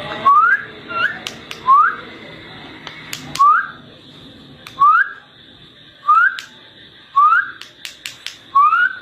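About eight short whistles, each sliding quickly upward, spaced a second or so apart, with faint clicks between them.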